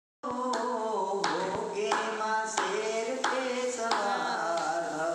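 A man singing a slow melody, clapping his hands in time about every two-thirds of a second.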